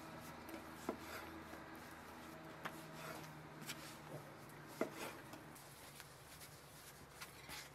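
Scattered light knocks and clicks of hand food preparation, a few seconds apart, over a low steady hum.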